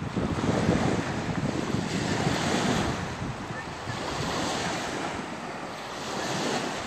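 Small lake waves breaking and washing up the beach, swelling and easing about every two seconds, with wind buffeting the microphone.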